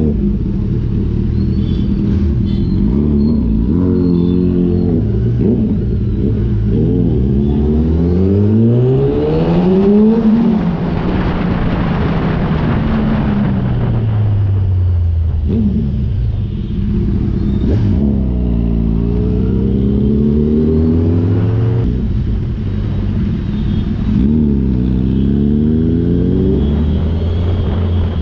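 Sport motorcycle engine heard from the rider's seat, rising and falling in pitch several times as the bike accelerates and eases off in traffic. Around ten seconds in it climbs highest, with wind rushing over the microphone, then falls away.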